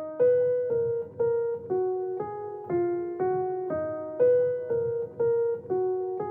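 Ringtone music: a slow keyboard melody of single notes struck about twice a second, each note fading before the next.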